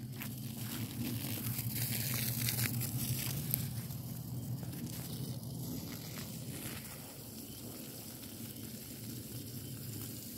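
Burning pile of paper, cardboard and dry grass crackling, with a steady hiss as water is put on the burning edge, loudest a couple of seconds in.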